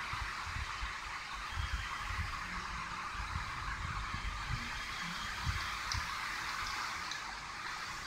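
Storm waves breaking against a sea wall, heard through a window as a steady rushing hiss with irregular low thuds.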